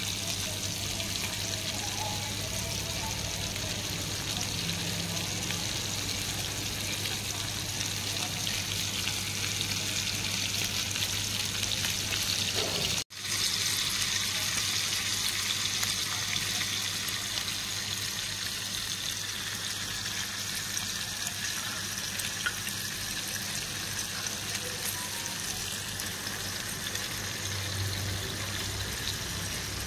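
Masala-coated fish steaks and a whole fish shallow-frying in oil on a tawa, sizzling steadily, with a steady low hum underneath. The sound cuts out for a moment a little under halfway through.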